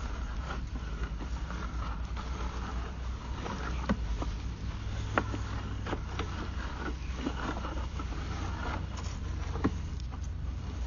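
Steady low rumble with scattered sharp clicks and knocks, three of them louder, as a sewer inspection camera's push cable is fed along a drain line.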